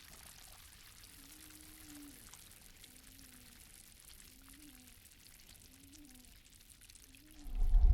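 Lake water splashing and pouring comes in loudly near the end, after a long quiet lull. Through the lull a faint low tone rises and falls about once a second.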